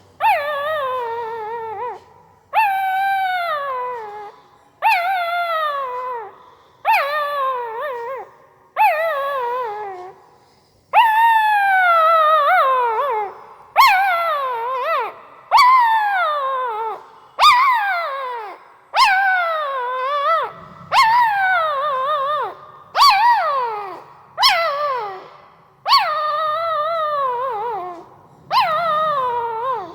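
Newborn pariah dog puppy whining in a string of high cries, about fifteen in all, one every one and a half to two seconds, each sliding down in pitch.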